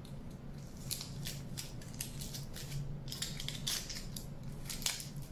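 Aluminium foil crinkling in irregular crackles as it is squeezed and wrapped around the wire leg of a sculpture armature.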